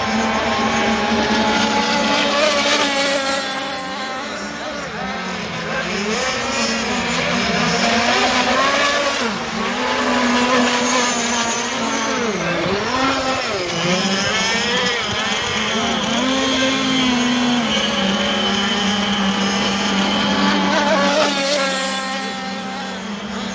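Several radio-controlled racing boats with 26–35cc two-stroke petrol engines running flat out around a circuit, their engine notes overlapping and dipping and rising as the boats pass and turn; one note holds steady near the end.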